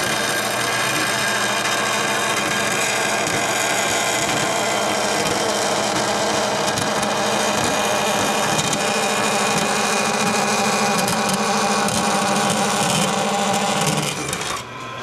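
Bandsaw cutting through thin aluminum sheet: the saw runs steadily as the blade cuts along the marked outline. The sound drops off shortly before the end.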